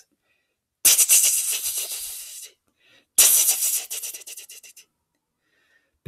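A person making a strange creature's noise with the mouth: two hissing, fast-fluttering bursts of about a second and a half each, each starting sharply and fading away.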